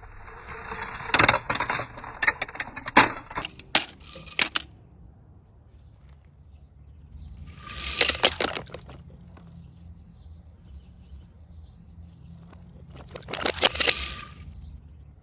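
Diecast toy cars clattering with a string of sharp knocks during the first four seconds, then two short noisy bursts with clicks, about eight and thirteen seconds in, as cars land in water.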